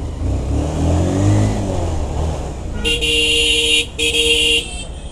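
Motorcycle engine running and picking up speed with wind noise, its pitch rising and then easing off. About three seconds in, a vehicle horn sounds twice: two steady blasts close together, each under a second.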